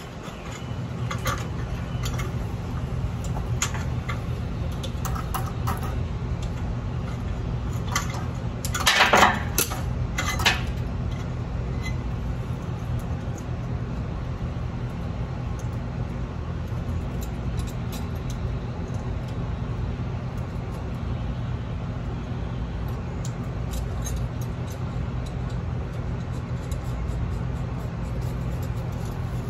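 Light metallic clicks and clinks of a screwdriver and small metal parts at an electric motor's wiring box, with a louder cluster of clinks about nine seconds in and another about a second later. A steady low hum runs underneath.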